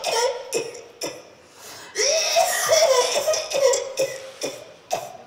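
A performer's wordless vocalizing: a drawn-out cry with a wavering pitch starting about two seconds in, with short sharp cough-like noises before and after.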